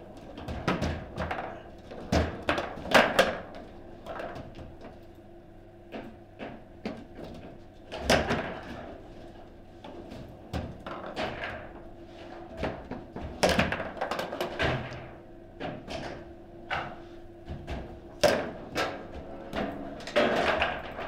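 Table football in play: the ball and the plastic figures on the metal rods knock and clack irregularly against one another and the table's sides, with a cluster of louder hits about two to three seconds in.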